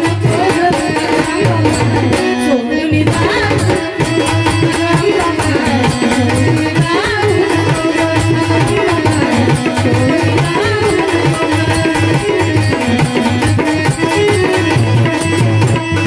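Marathi devotional folk song accompaniment: a melody line wandering up and down over a hand drum keeping a steady beat.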